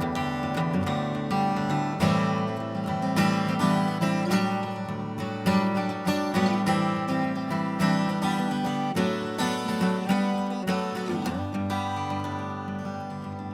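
Solo acoustic guitar playing an instrumental piece, with picked notes and chords ringing over a held bass. A strong chord lands about two seconds in, and the playing fades toward the end.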